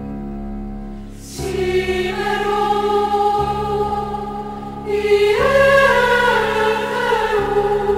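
Choir singing a slow chant over a steady held drone note. The voices swell about a second and a half in and climb to a higher pitch around the middle.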